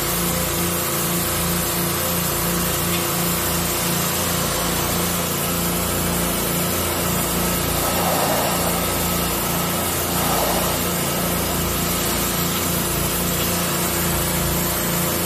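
Gas pressure washer running steadily: the small engine's even hum and throb under the hiss of the high-pressure water jet striking concrete. The spray hiss swells briefly twice, about halfway through.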